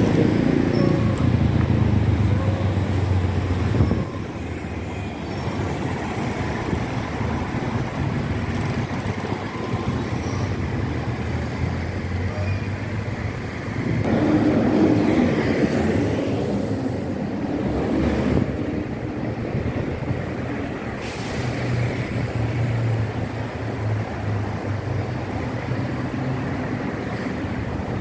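Street traffic, with city buses and cars driving past. A bus engine runs close by at the start, and louder passes come about halfway through and again later.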